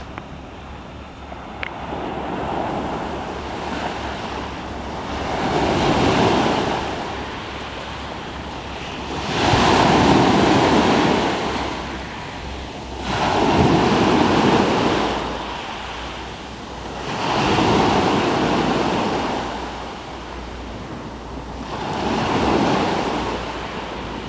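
Sea waves breaking on the shore, the surf swelling and falling back about every four seconds, with wind buffeting the microphone.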